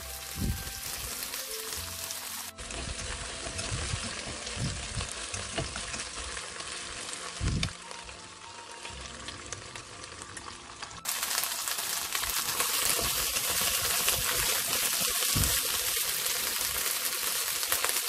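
Chicken wings with shallots, ginger and garlic sizzling in hot oil in a non-stick wok, a steady frying hiss that grows louder about eleven seconds in. A few soft knocks come as chopsticks turn the pieces in the pan.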